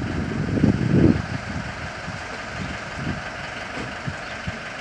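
Motorhome engine running at low speed as the vehicle backs out of an inspection bay; a louder uneven low rumble in the first second, then quieter steady running.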